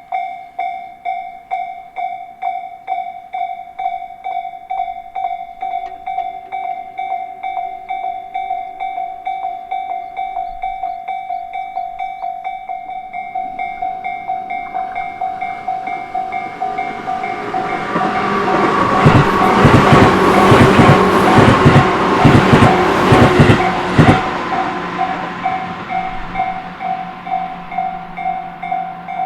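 Japanese railway level-crossing alarm bell ringing in a steady repeating ding-ding rhythm while an electric train on the Tobu Isezaki Line approaches and passes. The train grows louder from about halfway, its wheels clacking over the rail joints at its loudest, then fades away as the bell keeps ringing.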